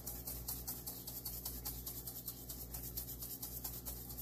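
Dried oregano shaken from a small glass spice jar: faint, quick, evenly repeated shaking strokes.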